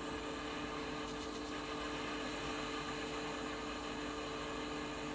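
Butane jet lighter burning with a steady hiss while it melts the ends of nylon paracord, with a faint low hum underneath.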